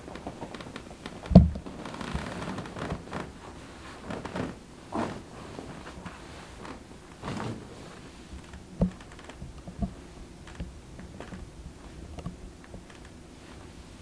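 A chiropractor's side-lying spinal adjustment: one sharp, loud thud about a second and a half in as the thrust is delivered, then rustling of body and clothes on the padded table and two softer knocks a little past the middle.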